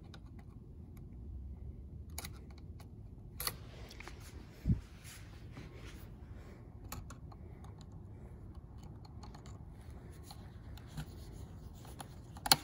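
Small clicks and scrapes of a screwdriver working a terminal screw on a metal toggle switch to free a crimped wire, with a dull bump about a third of the way in and one sharp click near the end.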